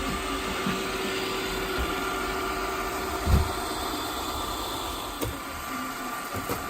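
+Style robot vacuum cleaner running with a steady whir and faint hum, and a single thump about three and a half seconds in.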